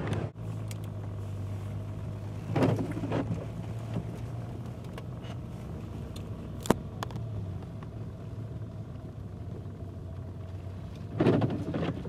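Car engine and road noise heard from inside the cabin while driving: a steady low hum, with a few faint knocks and a sharp click about seven seconds in.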